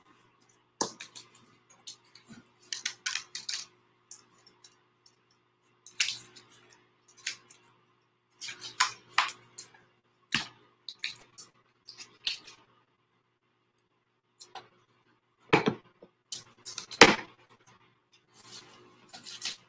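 Small laser-cut wooden stars being pushed out of a thin wood sheet while blue painter's tape is peeled and crumpled: scattered light clicks, taps and rustles, with two sharper knocks near the end.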